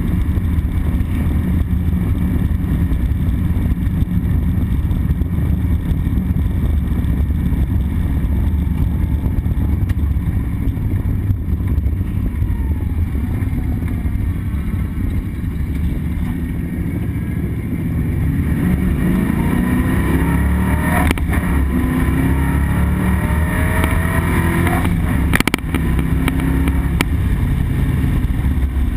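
1976 Ford Mustang II Cobra II's 302 V8 heard from inside the car under hard throttle. It runs loud and steady at first, then climbs in pitch as the car accelerates about two-thirds of the way in. A brief break with a sharp click comes near the end.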